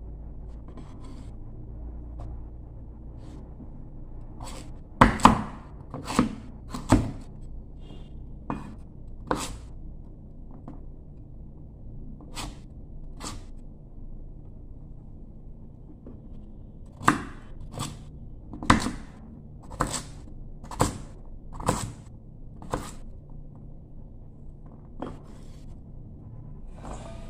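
Kitchen knife chopping firm produce on a thick wooden chopping board: sharp knocks of the blade on the wood, loudest around five to seven seconds in, then a run of about one a second later on.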